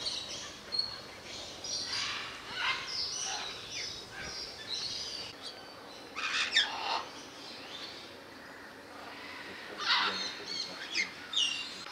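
Parrots squawking: several loud, harsh screeches a few seconds apart, with short higher chirps in between.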